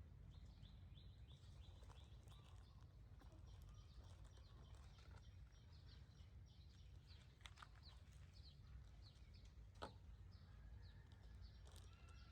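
Faint outdoor ambience: a steady low rumble under a continuous run of short, high, downward-sliding chirps, about two or three a second, with a couple of faint sharp clicks.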